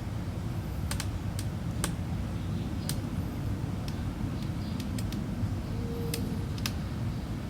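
A series of light, irregular clicks and taps, about a dozen, over a steady low hum.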